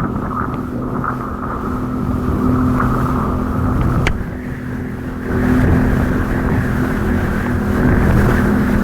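Jet ski engine running under way, a steady drone over the wash of water. A sharp click comes about four seconds in, and the engine gets louder a little after five seconds.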